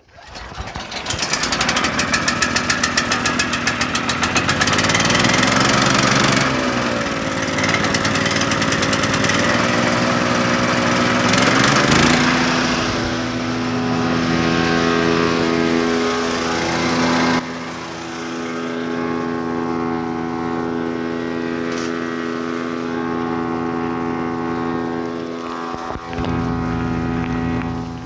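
DK2 OPC506 wood chipper's Kohler gas engine starting up and running, very noisy: it catches at once with rapid firing, its pitch climbs as it comes up to speed over the first dozen seconds, then it runs at a steady high speed, a little quieter in the last third.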